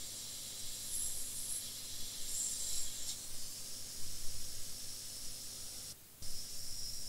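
Hot air rework station blowing a steady airy hiss, with brighter surges that come and go; it cuts out briefly about six seconds in and a steady high whine follows.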